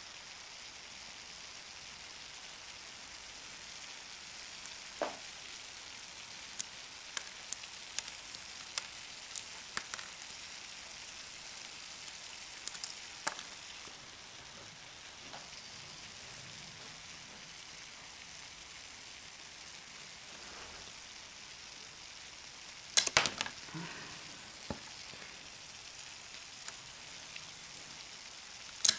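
Dry ice in a 95% ethanol bath fizzing with a steady faint hiss. Scattered sharp clicks and crackles come over it, with a louder cluster of clacks about 23 seconds in and another near the end.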